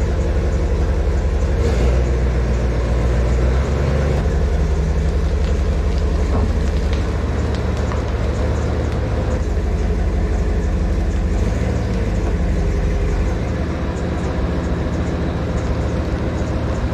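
Diesel engine of an articulated wheel loader running under load as it pulls the truck frame. The engine comes up in revs about two seconds in and settles back near the end.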